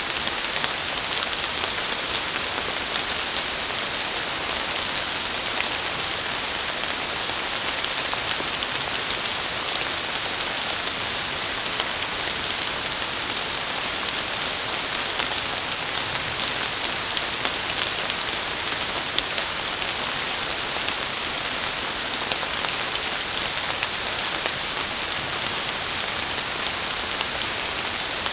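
Steady rain falling on forest foliage: an even, bright hiss dotted with many small drop ticks.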